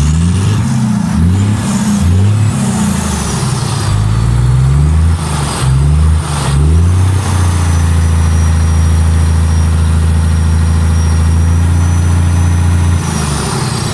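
Volvo FH truck's diesel engine revved in quick blips about once a second, then held at high revs and let drop near the end, with turbo whistle rising and falling with the revs. The exhaust blows out heavy smoke and soot; the truck's diesel particulate filter is blocked.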